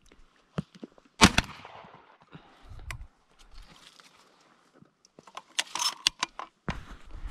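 One shotgun shot about a second in, the loudest sound, with a short tail. A quick run of sharp metallic clicks and rattles follows later.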